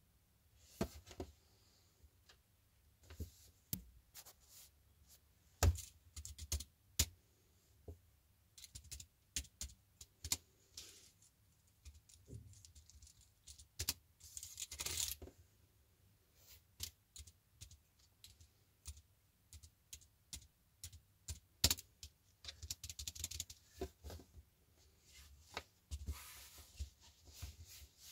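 Typing on an ultra-thin wireless Bluetooth keyboard: irregular, light plastic key clicks in quick runs and pauses, with short stretches of scuffing noise from hands moving over the keys and pad.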